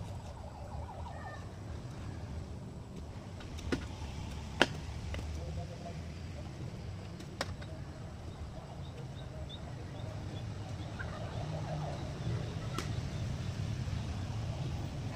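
Steady low outdoor rumble with a few sharp knocks, the loudest about four and a half seconds in, and faint high chirps.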